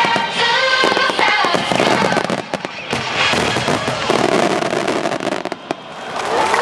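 A dense barrage of aerial fireworks shells bursting in quick succession, over music played at the display. The bangs thin out briefly about five and a half seconds in, then build again near the end.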